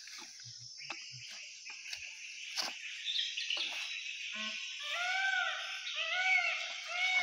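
Steady insect chorus, with rustling and crackling as a woven mat is spread over dry palm fronds. From about five seconds in, a run of short rising-and-falling calls repeats about twice a second.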